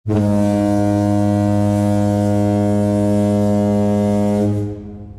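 Ship's horn sounding one long blast, a loud, steady low tone with many overtones, that stops about four and a half seconds in and echoes away.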